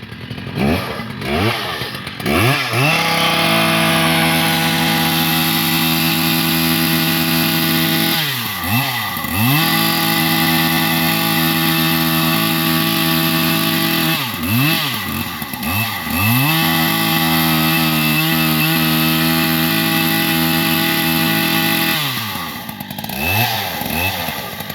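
Husqvarna 3120 120cc two-stroke engine, fitted as a chainsaw, blipped up and down a few times, then held at a high steady speed in three long stretches. Between them it drops back and picks up again.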